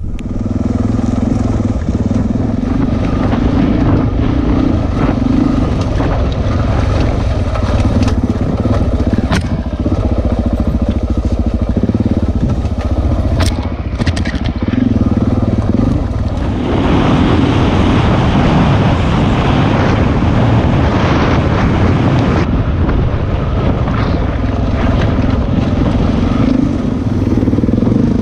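Single-cylinder dual-sport motorcycle engine running under varying throttle, heard from onboard the bike as it rides over a rocky trail, with a few sharp knocks from stones. The sound gets louder a little past halfway.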